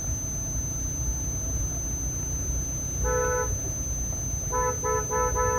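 Car horn sounding a single steady note: one short toot about three seconds in, then three quick toots and a longer one near the end. Underneath is the low rumble of a car moving slowly.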